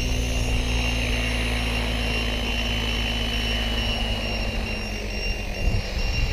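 Align T-Rex 700E electric RC helicopter in flight: the main rotor makes a steady drone under a high, steady whine. The low rotor sound eases off about four seconds in.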